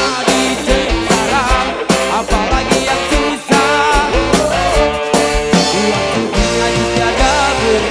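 Live dangdut band playing: a man singing with a wavering voice over electric guitars, keyboard and a steady drum beat.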